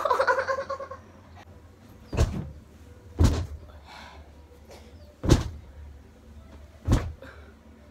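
A short yell from a person, then four heavy thumps spaced one to two seconds apart.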